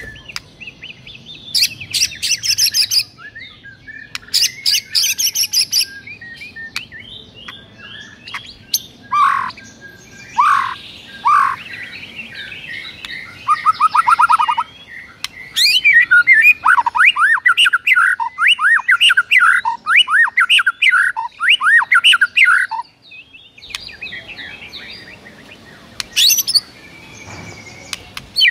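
White-rumped shama (murai batu) singing loud, varied song, stirred into fighting mode (narung): harsh chattering bursts early on, then clear whistles and a trill, then a long run of fast repeated notes from about 15 to 23 seconds, a short pause, and more calls near the end.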